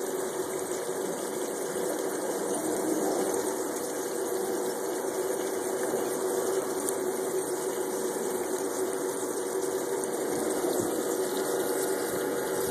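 A small water pump humming steadily, with water flowing down an aluminium sluice box.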